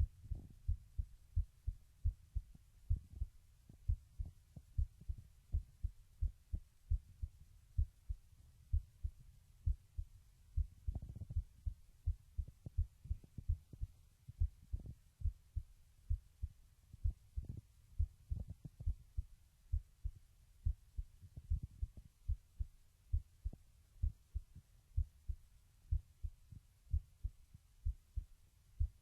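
A teenage boy's heartbeat picked up through a webcam microphone, with low, regular thumps and a low hum underneath.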